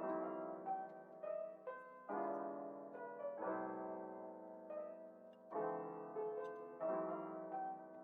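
Background music: a soft piano or keyboard piece, notes and chords struck every second or so.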